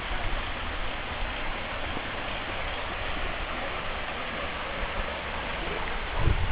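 Steady rush of water from a waterfall, with a dull thump near the end.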